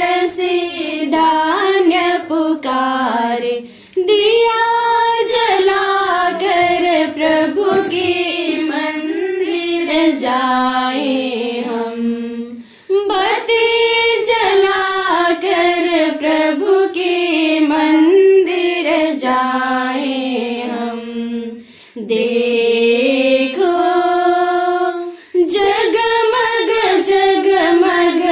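Hymn sung by a woman's voice, a slow melody in long phrases with brief breaks between them.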